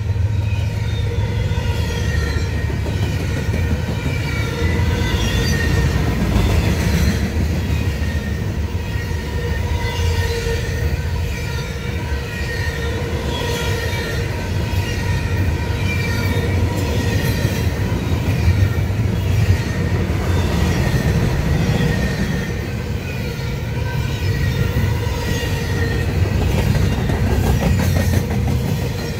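Double-stack intermodal container freight train rolling past close by: a steady low rumble of steel wheels on the rails, with a thin, steady high ringing tone running over it.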